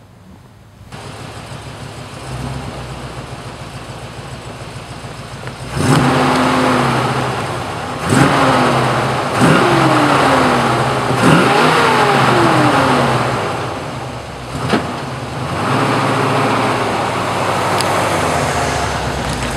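1974 Ford Bronco's engine running steadily, then revved several times as the truck creeps forward, each rev rising sharply and sliding back down.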